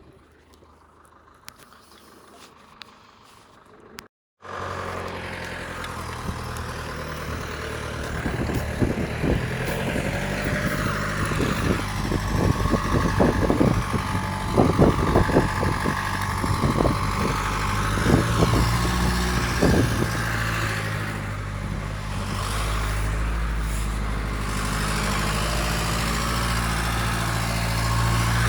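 A vehicle engine running steadily, loud and low, after a brief cut about four seconds in. A run of sharp clicks and knocks sounds over it through the middle stretch.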